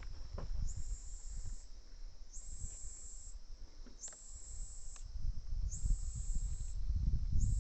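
A high-pitched insect trill comes in pulses about a second long, repeating roughly every 1.7 seconds. Under it runs a low rumble of wind on the microphone, growing stronger near the end.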